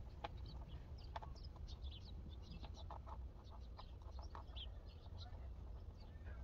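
Faint backyard bird calls with chickens clucking: many short, high chirps scattered throughout.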